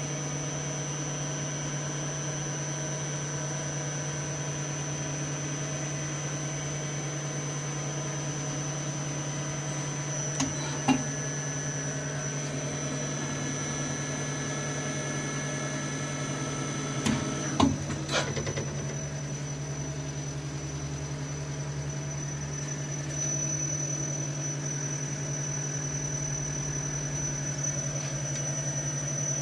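A 1988 Star RNC-10 CNC automatic lathe, powered up and humming steadily, with a low hum and several steady whining tones. A few short clicks and knocks come about ten seconds in and again around seventeen to eighteen seconds in.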